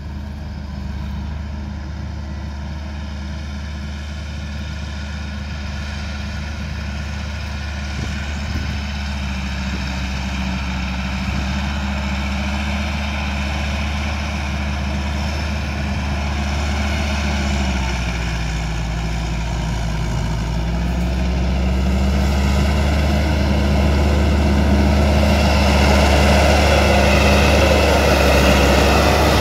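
Massey Ferguson 365 tractor's four-cylinder diesel engine running while the tractor drives through mud carrying a round bale on its front loader, growing louder as it approaches. The engine note dips a little past the middle and then picks back up.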